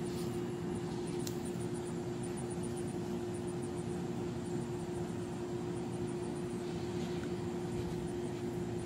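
Steady low mechanical hum holding one pitch, with a faint click about a second in.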